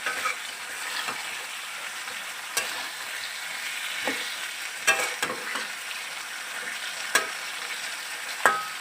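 Chilli chicken sizzling steadily in its sauce in a pan while it is stirred, with a utensil scraping and knocking against the pan every second or so.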